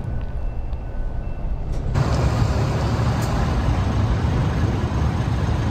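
Road vehicle noise: a steady low rumble, joined about two seconds in by a loud, even hiss-and-rumble of a large vehicle such as a truck, which keeps on until near the end.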